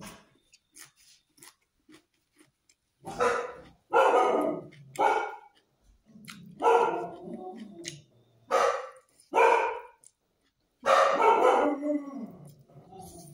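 A dog barking about eight times at irregular intervals, the barks short and loud. Before the barking starts, soft clicks of a fork against a steel plate and chewing.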